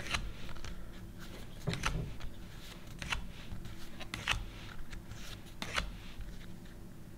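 Trading cards being slid one by one off a hand-held stack and dropped onto a pile on a playmat: short papery flicks and taps roughly once a second, over a faint low hum.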